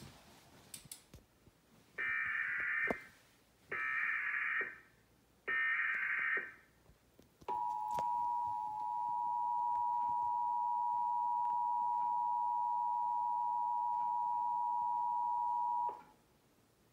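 Emergency Alert System alert from a Trilithic EASyPLUS: three short bursts of the warbling SAME digital header, then the steady two-tone attention signal. The attention signal starts about 7.5 seconds in, holds for about eight seconds, and cuts off near the end. This opens a child abduction (Amber Alert) warning.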